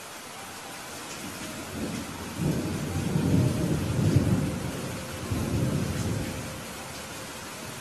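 Steady rain hiss with a low roll of thunder that swells about two seconds in and dies away a few seconds later.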